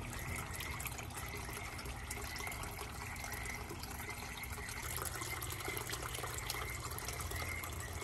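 Small tabletop water fountain running: water pours steadily from a pitcher-pump spout into a pot and spills over into a second pot below, a continuous splashing trickle.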